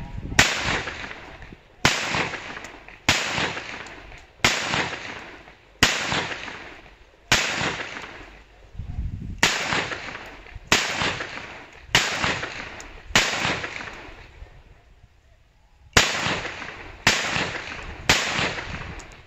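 Zoraki 914 blank-firing pistol fired in single shots, thirteen very loud reports each ringing off for about a second, spaced about a second and a half apart with one longer pause of about three seconds before the last three. The pistol cycles shot after shot without a hitch.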